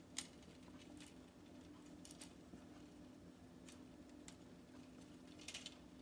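Faint, scattered clicks of plastic K'Nex pieces being handled and snapped together, over a low steady hum.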